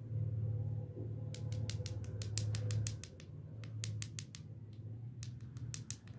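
Hard-candy lollipop heads tapped against each other, giving quick sharp clicks in three runs, the first and longest about a second in. A steady low hum sits underneath.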